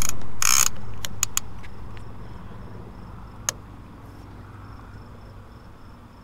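Fishing rod and reel being pulled from a rod holder on a boat: two loud scraping bursts in the first second, then a few sharp clicks and a single knock about three and a half seconds in. Crickets chirp in a steady pulse underneath, with a low hum that stops about five and a half seconds in.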